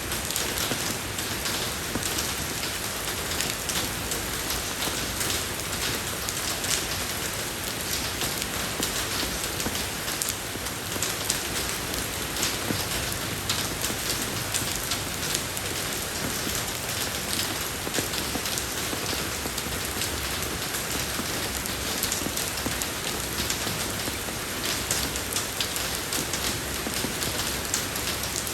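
Steady rain falling on a road surface, an even hiss with many small drop patters throughout.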